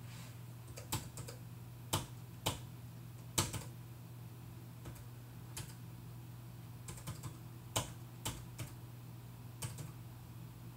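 Keystrokes on a computer keyboard: scattered, irregular key clicks with pauses between them, over a steady low hum.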